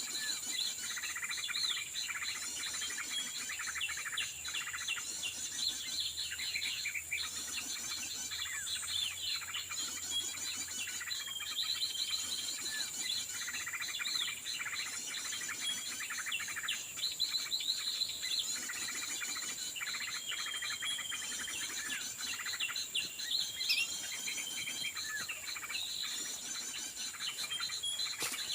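Many small birds chirping and trilling densely, with a short level whistle note that comes back every few seconds over a steady high-pitched whine.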